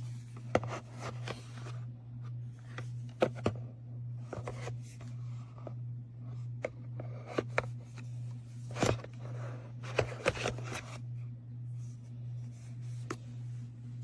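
Hands handling small objects: scattered clicks, taps and brief rustles at irregular intervals, over a steady low electrical hum.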